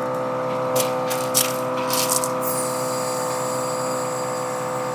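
Air compressor motor running with a steady hum while it pumps up a flat RV tire. Short hisses of air come about a second in, then a steady hiss of air from about two and a half seconds on.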